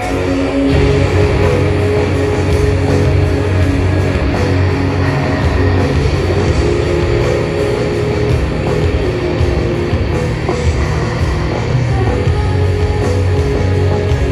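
Loud heavy rock music with distorted electric guitars and a strong, dense low end, kicking in about a second in after a quieter, held-note passage.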